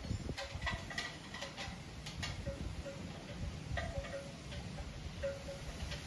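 Wind chimes tinkling with short, irregular strikes as the breeze moves them, over a low rumble of wind on the microphone.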